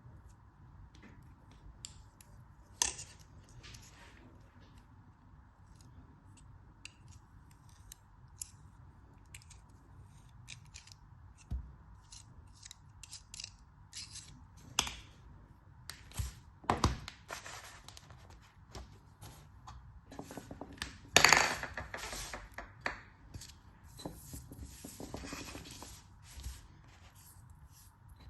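A blade cutting into a soft, crumbly material in close-up: a run of short, crisp crunches and clicks at an irregular pace, growing busier in the second half, with the loudest, longest crunch about three quarters of the way through.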